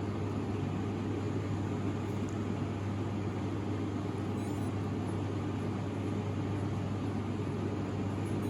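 A steady machine hum: a low drone with an even hiss over it, unchanging in level.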